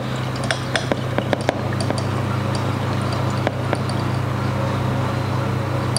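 A steady low hum with a few light glassy clicks scattered through it as a glass conical flask is swirled by hand under a burette during a titration.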